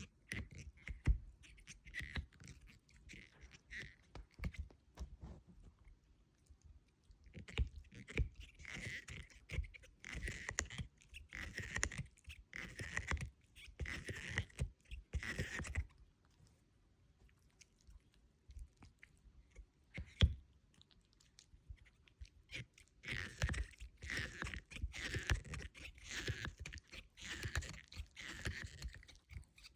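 A chihuahua puppy chewing and biting a chew toy, with gnawing clicks and crunches, and the toy sounding in short repeated bursts about once a second in two long runs. There is one sharp knock a little past the middle.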